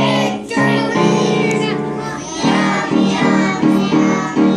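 Group of children singing a song with musical accompaniment.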